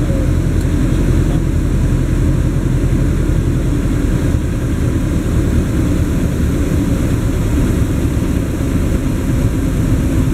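Single-engine light airplane's piston engine and propeller running with a steady drone, heard from inside the cockpit.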